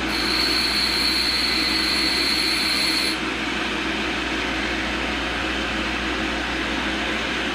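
A high-speed steel lathe tool held by hand against the white wheel of a running tool grinder: a steady grinding hiss with a high, steady tone while the edge is finished. It stops about three seconds in, when the tool is lifted off, and the grinder's motor keeps running with a steady hum.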